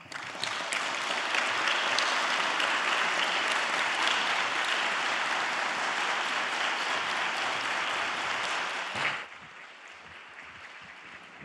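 Audience applauding, a dense steady clapping that dies away quickly about nine seconds in.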